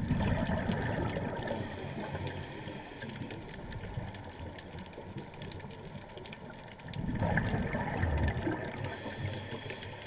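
Underwater recording of steady water noise, with two louder rushing swells of water: one at the start and one about seven seconds in.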